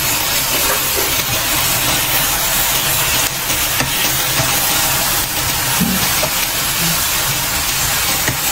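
Beef and Chinese kale sizzling steadily in a hot non-stick wok while a spatula stirs and tosses them, with a few light spatula scrapes against the pan.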